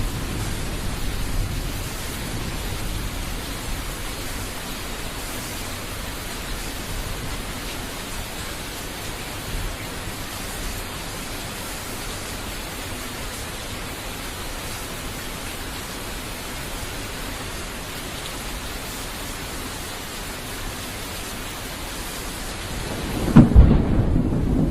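Thunderstorm: steady rain hiss with a low thunder rumble dying away at the start. About a second before the end a sudden loud thunderclap breaks and rolls on as a deep rumble.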